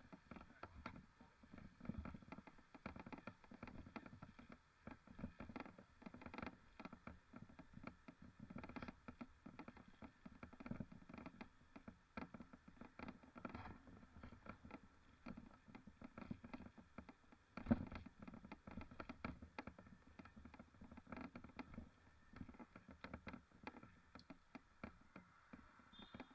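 Faint, dense, irregular tapping and rattling of a mountain bike being ridden over rough ground, picked up by an action camera, with one sharper knock about eighteen seconds in.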